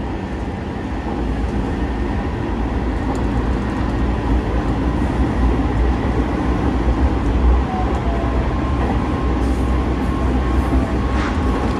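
Hanshin 9000 series electric train running at speed, heard from inside the passenger car: a steady rumble of wheels on rails that gets a little louder about a second in, with a faint steady tone over it.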